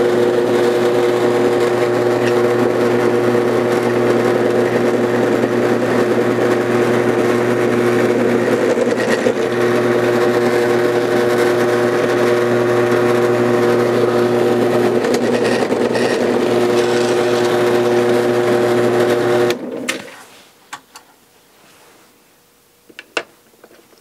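Drill press running steadily with a BPI roll crimper spinning in the mouth of a 12-gauge shotshell hull, rolling its crimp. The motor shuts off suddenly about 20 seconds in, leaving a few faint clicks.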